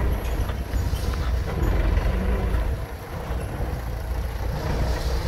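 Belarus 825 tractor's four-cylinder diesel engine running under load, a steady low rumble, as it pulls a loaded cassava trailer through mud.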